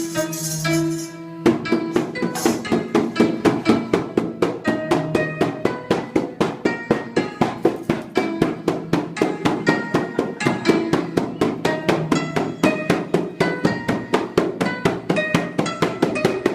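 Music with a fast, even drumbeat over sustained pitched notes; after a short lull the beat comes in about a second and a half in.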